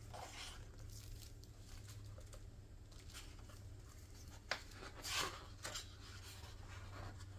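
Gloved hands handling the paper pages of a hardcover book: a light tap about four and a half seconds in, then two short paper rustles as a page is grasped. A faint steady low hum lies underneath.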